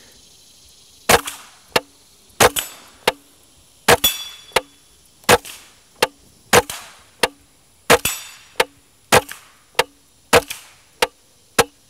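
Integrally suppressed Henry AR-7 .22 LR semi-automatic rifle firing supersonic CCI Clean rounds in a steady string, about one shot every 1.3 seconds, each a short sharp crack. Each shot is followed about half a second later by a fainter, sharper tick.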